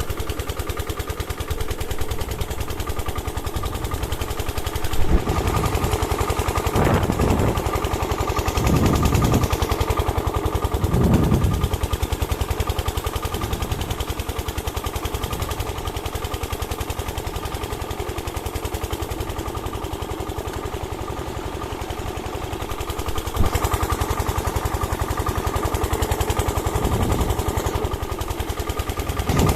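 A small engine running steadily with a rapid, even beat, growing louder for a few stretches.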